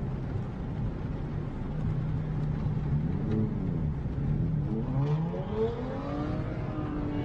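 Ford Mustang's engine revving as the car accelerates hard on a wet road: a steady engine hum, then from about three seconds in the engine note rises and falls several times, climbing to its peak near the six-second mark.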